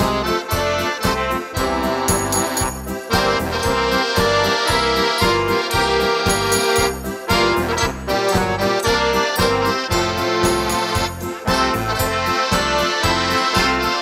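A small family band playing instrumental music: sustained chords over a steady bass beat.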